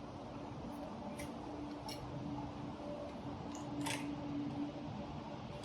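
About four light, sharp clicks of hands working an eBike's front through axle and its lever, over a steady faint hum.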